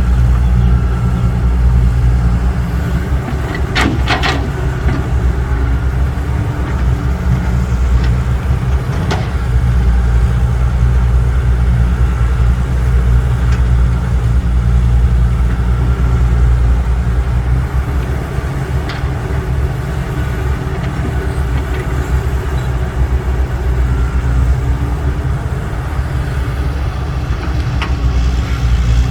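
Heavy diesel engine running steadily at low revs, with a brief clatter about four seconds in and a sharp knock near nine seconds.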